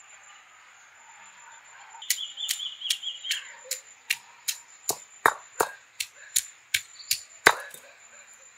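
Heavy stone roller of a stone grinding slab (ammi) pounding ginger against the slab: a run of sharp knocks, about two or three a second, starting about two seconds in. One of the loudest knocks comes near the end.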